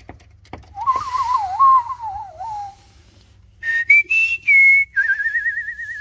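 A person whistling. First a low, wavering whistle for about two seconds, then after a short pause a higher whistle that steps up and down and ends in a long trilled note.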